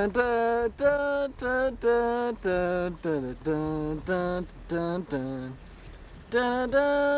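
One voice singing a tune in short separate notes, about two a second, each note held at a steady pitch that steps up or down from the last, with a short pause near the end.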